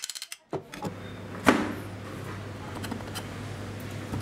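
Quick brush strokes scrubbing the old drill's aluminium housing, then a steady low hum under a faint scratchy hiss, with one sharp knock about a second and a half in.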